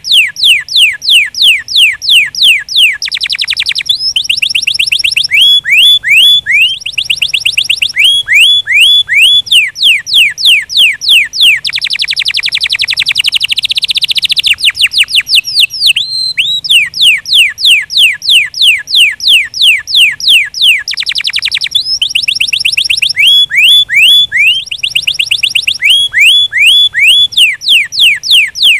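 A domestic canary sings a long, loud song in tours. Runs of quick, repeated downward-sweeping whistled notes change every second or two into faster, buzzier trills, the densest roll coming about halfway through.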